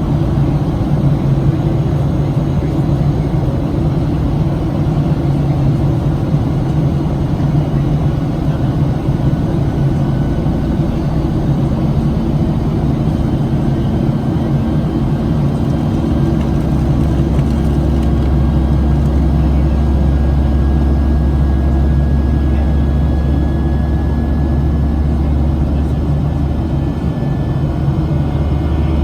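Steady cabin noise of a Boeing 737-700 in the climb: the engines' drone and the rush of air, with a deeper hum coming in about halfway through.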